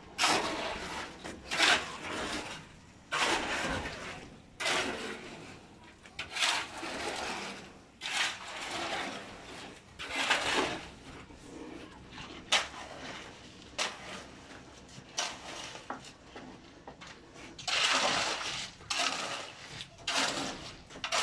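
Steel shovel scraping and scooping wet concrete on a concrete floor, in repeated strokes every second or two.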